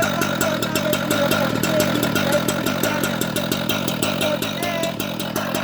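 Quick cut-saw (cut-off saw) running steadily with an even, rapid pulse of about eight beats a second.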